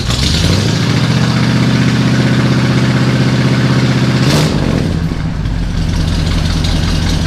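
1977 Chevy Scottsdale C10 pickup's engine running through its new dual exhaust, a steady note that drops lower after a brief burst of noise about four seconds in.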